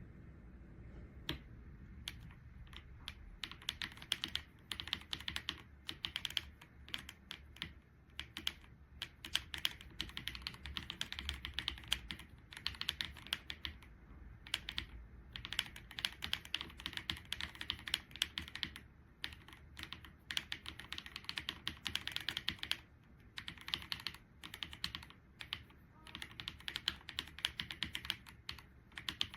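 Typing on a Keychron C3 Pro mechanical keyboard with red linear switches: fast runs of key clicks in bursts of a few seconds, broken by short pauses.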